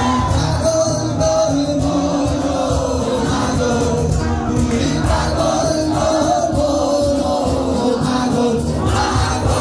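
Live band performance: a male singer on a microphone over guitar, with a crowd of voices singing along loudly and a steady beat of strikes.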